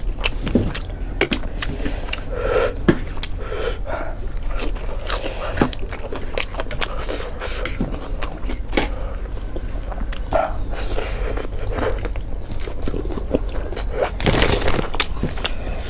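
Close-miked eating of jajangmyeon (black bean noodles): chewing and biting, with scraping noises and many short sharp clicks.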